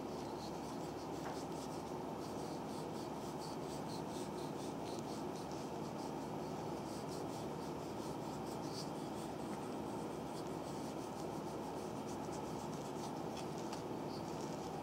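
Wooden massage stick pressing and rubbing over oiled skin, faint scratchy ticks and rubbing, over a steady low hiss.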